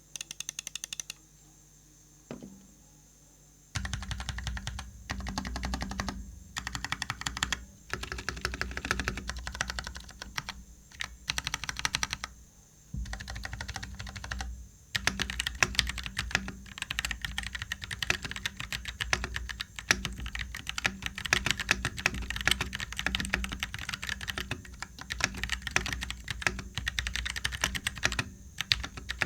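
Typing on a KLIM Shift 65% mechanical keyboard with brown switches. There are a few keystrokes at first, then steady typing from about four seconds in, in runs broken by short pauses.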